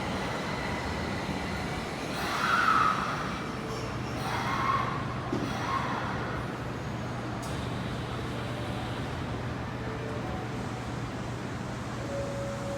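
Osaka Metro subway train at an underground station platform, a steady running rumble with a low hum that sets in about four seconds in.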